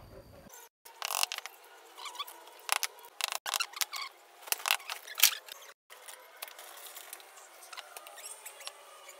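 Thin wooden slats clicking, scraping and knocking as they are fitted by hand into a small wooden lantern frame: a run of sharp clicks and taps, the loudest about five seconds in, then lighter scratchy handling. It sounds thin, with no low end.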